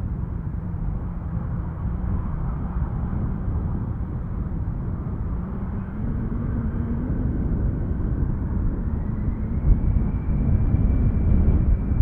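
Airliner engines approaching on landing: a steady low rumble that grows louder, with an engine whine rising in pitch about two-thirds of the way through.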